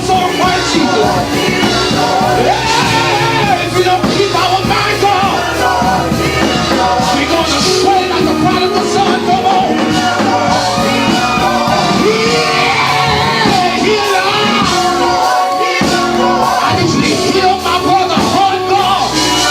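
Live gospel praise-and-worship music: singers over a band with a steady bass, with loud shouted vocal calls.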